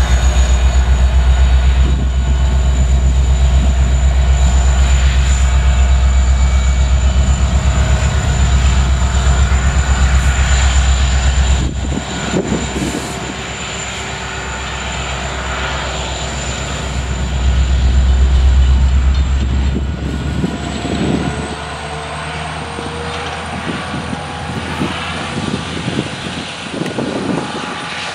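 Diesel-electric freight locomotives, an EMD SD70MAC and an SD70ACe, working under power as they pull a coal train away: a deep pulsing diesel rumble with a thin high whine over it. The rumble drops about twelve seconds in and swells again before easing, and the whine rises in pitch in the last third. Coal hopper cars roll past with scattered knocks and clanks.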